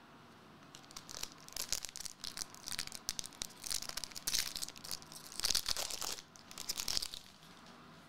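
Trading-card pack wrapper being crinkled and torn open by hand, in irregular rustling bursts that are loudest about five and a half seconds in.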